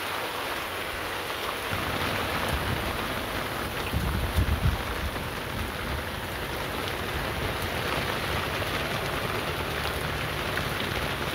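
Steady rain falling on a fishing boat. A low rumble joins about two seconds in and swells briefly around four seconds in.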